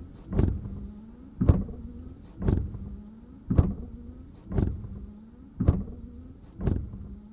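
Car windshield wipers sweeping back and forth, about one stroke a second, each stroke swelling and ending in a sharp thump, with the wiper motor's low steady hum between strokes.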